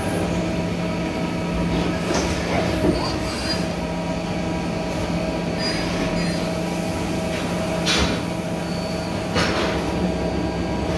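Mazak Quick Turn 100 SG CNC lathe running steadily, a hum with a higher whine over it, as a turret tool cuts a brass bar turning in the spindle. Short bursts of hiss come about two, eight and nine seconds in.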